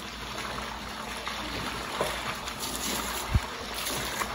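Swimming-pool water sloshing and lapping around a person moving in it, with a small splash about two seconds in and a short low thump a little after three seconds.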